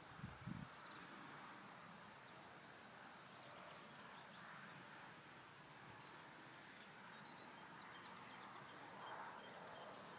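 Near silence: faint outdoor background noise, with a couple of soft low thumps just at the start.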